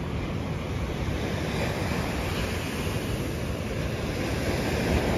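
Steady wash of ocean surf on a beach, with wind buffeting the microphone.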